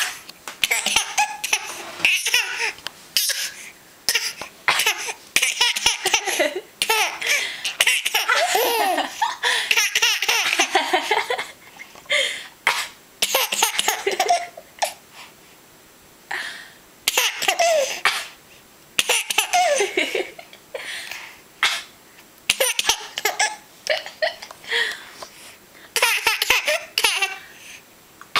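A baby laughing in repeated fits, broken by short pauses.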